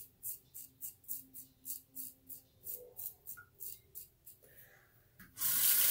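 RazoRock Blackhawk v2 razor with a Feather Professional blade scraping through lathered 2.5-day neck stubble in short, quick strokes, about three a second. About five seconds in, a tap is turned on and water runs loudly into the sink.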